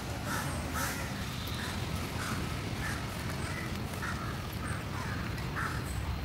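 Crows cawing over and over, roughly two short calls a second, over a low steady background rumble.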